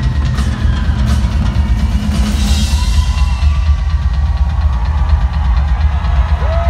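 A rock drummer playing live on a Pearl drum kit, amplified in an arena: a constant, heavy bass-drum pounding under fast drum and cymbal hits.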